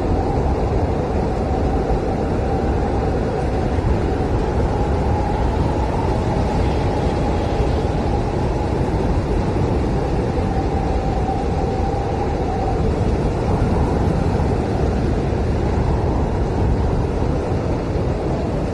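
Blizzard wind blowing steadily: a dense low rush with a faint wavering howl riding over it.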